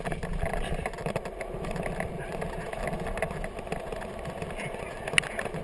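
A kickbike rolling fast on wet asphalt behind two running huskies: a steady tyre rumble with small rattles and ticks, and one sharp click about five seconds in.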